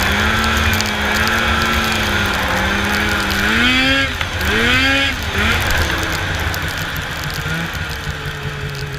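Snowmobile engine running steadily, revved up sharply twice about four and five seconds in, then dropping to a lower steady note that slowly fades.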